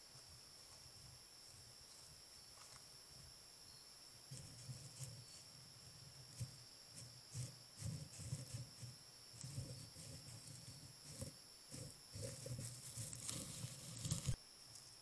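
Nine-banded armadillo rooting and brushing against the trail camera, its shell rubbing and bumping the housing. Irregular close rustles, scrapes and low knocks begin about four seconds in, grow loudest near the end and cut off suddenly.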